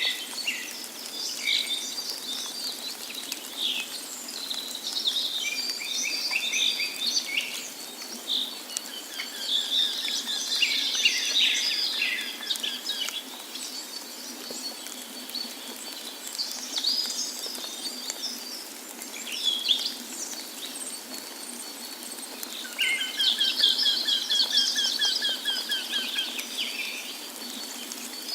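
Several wild birds singing and calling in a forest chorus, with chirps and whistled notes throughout and two long, fast trills partway through and near the end, over a steady background hiss.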